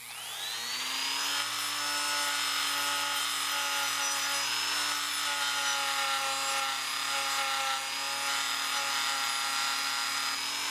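Dremel rotary tool spinning up to speed, then running steadily with a sanding drum grinding the curve of a pair of steel pliers. A high whine holds over a rough, scraping rub.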